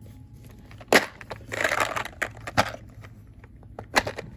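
Small tools and parts being handled in a toolbox drawer: sharp clicks and knocks about a second in, near the middle and near the end, with a short rustle in between.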